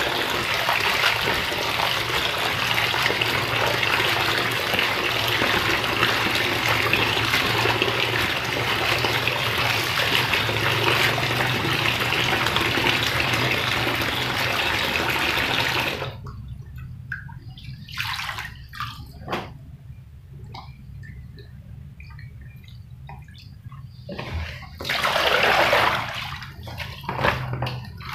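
Kitchen tap running into a basin of water spinach while hands swish and rinse the leaves. About sixteen seconds in, the running water cuts off suddenly, leaving small splashes and rustles, with a short rush of water near the end.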